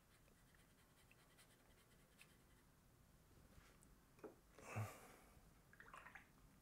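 Near silence: a watercolour brush faintly stroking on paper, then a few small ticks and a soft rustle of handling about four to six seconds in.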